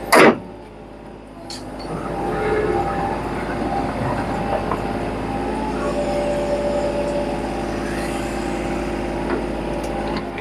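A single loud knock right at the start. Then, about a second and a half in, a Hitachi ZX35 mini excavator's diesel engine comes up and runs steadily with a pitched mechanical drone.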